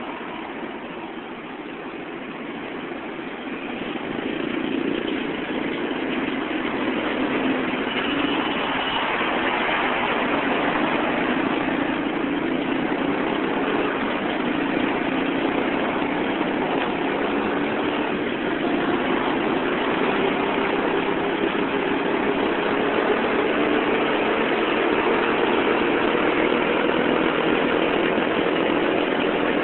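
Road traffic in slow, congested city traffic: car and motorcycle engines running at low speed, getting louder about four seconds in. In the second half, one engine's hum slowly rises in pitch.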